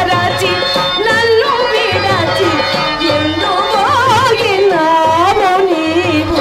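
A woman singing a heavily ornamented, wavering melodic line in the Carnatic style of a Telugu stage-drama verse song, over a steady held drone note and a light hand-drum beat.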